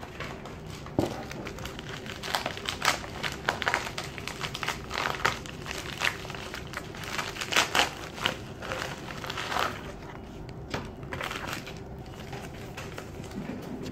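Packaging crinkling and crackling in irregular bursts as it is handled and opened.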